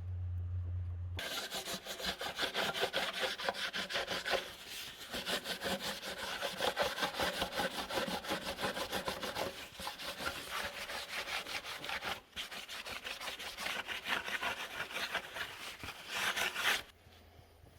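Rapid back-and-forth rasping strokes of a hand file or abrasive on metal, going on steadily and stopping about a second before the end. It is typical of material being taken off a block guard where it binds against the engine block's cooling channel.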